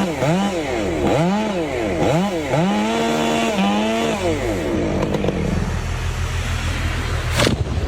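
Chainsaw engine revved up and down about five times in quick succession, then dropping back to a lower steady idle about four seconds in. A single sharp knock near the end.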